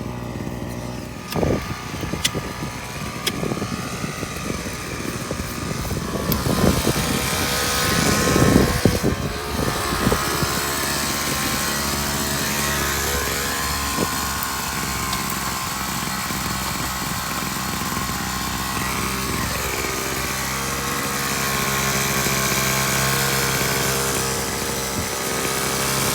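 Gas-powered jackhammer running. It hammers in rapid bursts for the first ten seconds or so while driving a grounding rod into the ground, then its engine idles steadily.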